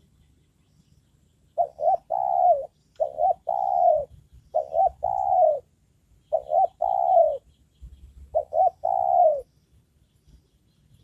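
Spotted dove cooing five times in a row, each phrase two or three short notes running into a longer coo that falls in pitch.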